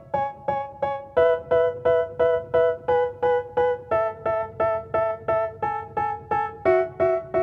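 Background music: an electric piano playing short, evenly repeated chords, nearly three a second, with the chord changing every second or two.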